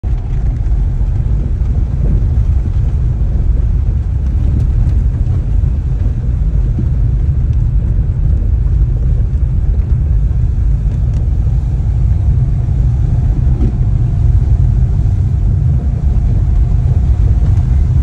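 A car driving on a dirt road, heard from inside the cabin: a loud, steady, low rumble of tyres and running gear.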